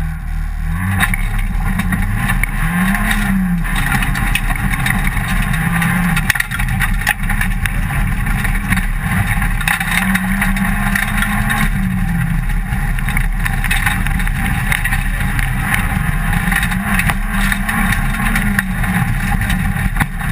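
Rally car engine heard from inside the cabin, pulling away from the stage start about a second in and then accelerating hard, its pitch climbing and dropping again and again as it runs up through the gears. Steady tyre and road noise from the gravel road runs underneath.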